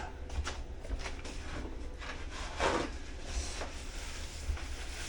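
Faint handling noises: a few light clicks and soft knocks with short rubbing sounds, one a little louder about two and a half seconds in.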